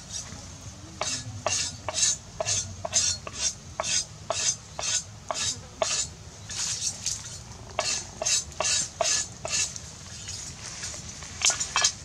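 Spoon stirring in a metal pot, rhythmic strokes with a slight ring, about two a second, pausing near the end before two more strokes.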